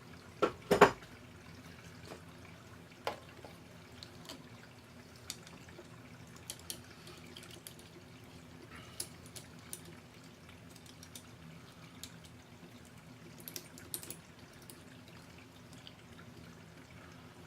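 Small hand tools and metal parts being handled: a few sharp clicks close together near the start, another about three seconds in, then scattered light ticks and taps over a steady low hum.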